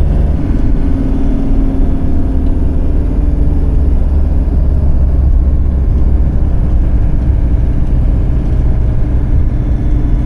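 Steady engine and road noise of a vehicle driving up a mountain pass road: a continuous low rumble with a faint engine hum.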